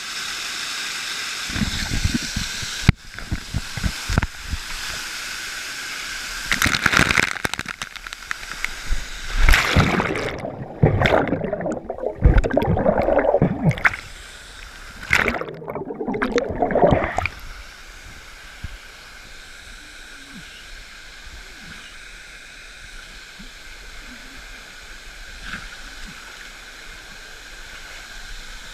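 Swimmers' water splashing and sloshing loudly and irregularly, with the sound turning muffled twice in the middle. After about 17 seconds it settles to a quieter, steady rush of falling water.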